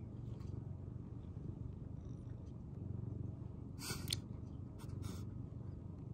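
Domestic tabby cat purring, a steady low drone that swells and eases about once a second, with two brief crackles near the middle.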